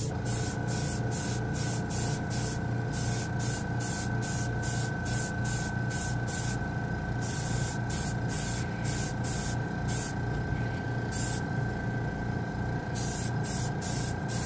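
Airbrush spraying lacquer paint, its hiss coming and going in short bursts about once or twice a second, with a pause of a couple of seconds near the end. A steady high whistle runs under it, over a steady low hum.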